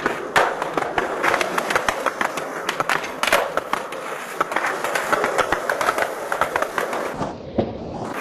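Skateboard wheels rolling over a concrete sidewalk: a continuous rolling rattle with many sharp clicks and clacks.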